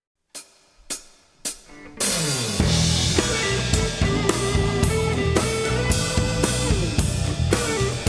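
A live rock band's count-in of three sharp clicks about half a second apart, then the full band comes in together about two seconds in: drum kit with kick and snare keeping a steady beat, bass, guitars and keyboards.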